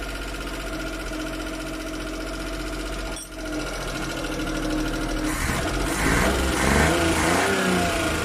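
Suzuki F6 three-cylinder engine running unevenly, the misfiring running of a carburettor fault. It runs steadily, dips briefly about three seconds in, then is revved with the pitch rising and falling from about five seconds on.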